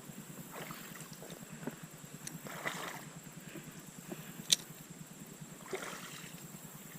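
Faint sloshing of creek water with three soft swishes, and one sharp click about halfway through.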